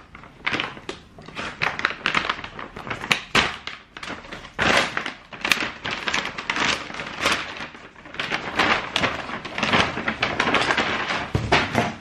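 Clear plastic bags and packaging around sneakers being handled, rustling and crinkling in irregular bursts, with scattered taps and thuds.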